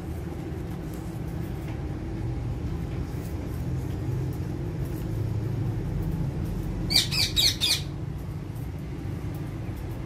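A parakeet gives a short run of four or five harsh squawks about seven seconds in, over a steady low background rumble.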